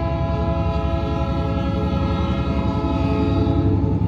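Diesel switching locomotive passing close by with its horn chord held steady over the rumble of its engine.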